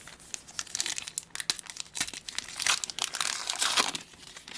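Wrapper of a Panini Adrenalyn XL trading card pack being torn open and crinkled: a dense run of crackles, busiest in the second half.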